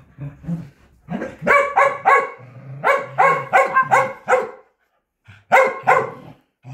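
Corgi barking in quick runs of short barks, about four a second, with a pause of about a second before the last run. These are excited play barks during fetch, with the ball dropped at its feet.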